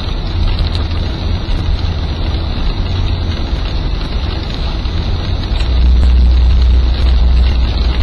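Steady low rumble of engine and road noise inside a moving vehicle's cab at highway speed, swelling louder for a couple of seconds past the middle.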